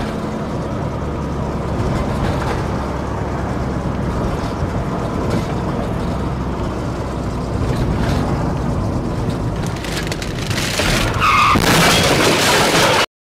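Steady road and engine noise inside a moving car, picked up by a dashcam. About ten seconds in the noise grows louder and rougher, with a brief high squeal, then cuts off abruptly.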